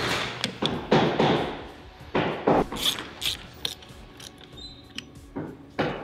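Hands working a cable bundle and a metal clamp on a trolling-motor shaft: a string of short rustling, scraping and knocking handling noises, several in the first three seconds and two more near the end.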